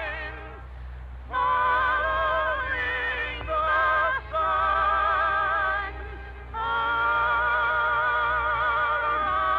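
Operetta singing with orchestra on an old radio recording: a few long notes sung with wide vibrato, the last one held from about two-thirds of the way in, at the close of the song. A steady low hum runs underneath.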